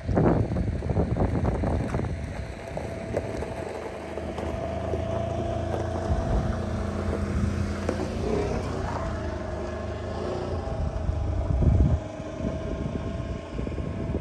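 A vehicle engine running steadily at idle, with wind rumbling on the microphone, loudest at the start.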